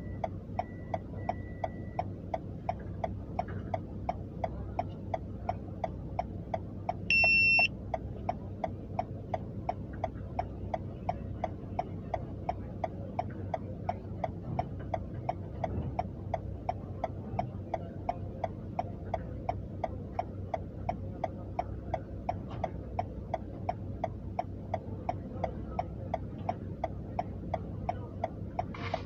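A car's indicator clicking steadily, about two clicks a second, over the low hum of an idling engine, heard from inside the cabin. About seven seconds in, a single loud high beep lasts about half a second.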